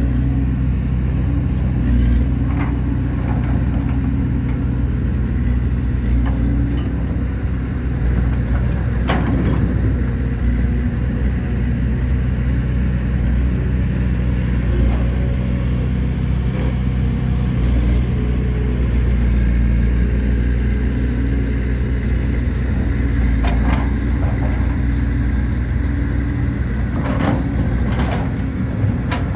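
Caterpillar hydraulic excavator's diesel engine running steadily while it digs soil, with a few sharp knocks scattered through.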